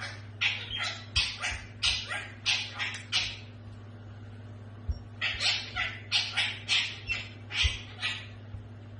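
A dog yapping in quick high-pitched calls, about two to three a second, in two runs with a pause of about two seconds between them, over a steady low hum.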